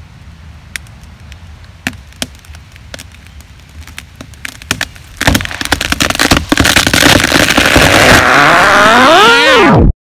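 Hardwood tree cracking as it starts to go over: scattered sharp pops of breaking wood fibre for about five seconds, then a loud, rising rush of crackling and splintering. Near the end a sliding, falling tone runs under it before the sound cuts off suddenly.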